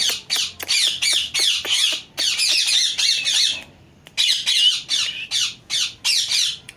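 A pet parrot squawking and chattering in a fast run of short, harsh, high calls, pausing briefly about four seconds in before starting again.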